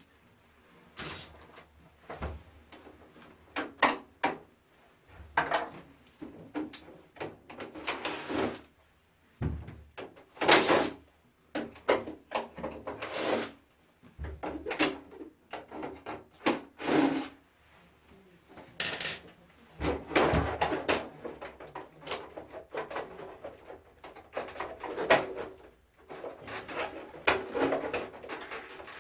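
Irregular clicks, knocks and short scrapes of a wall-mounted air conditioner's casing parts being handled, unclipped and taken apart.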